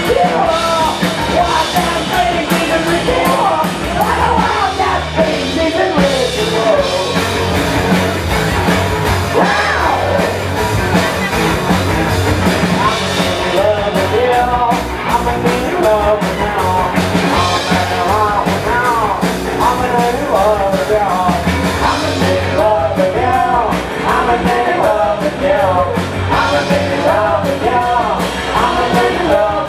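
Loud live rock band playing: a drum kit, an electric bass and an amplified cello, with sung and yelled vocals.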